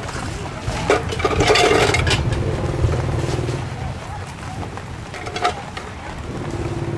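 Market chatter of several voices with a motor vehicle engine running close by, loudest about one to three seconds in.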